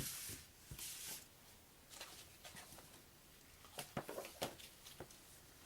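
Thick cardboard game boards being handled and set aside on a table: two brief sliding rubs, then a few light knocks and taps.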